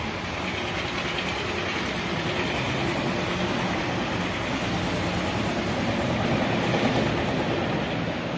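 Steady rumble of a passing vehicle: a low engine hum under a wide rushing noise, swelling slightly past the middle.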